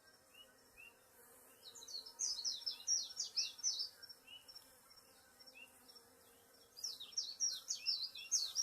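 Honeybees humming faintly around an open top-bar hive. Over the hum come two runs of rapid, high, falling chirps, one about two seconds in and one from about seven seconds in.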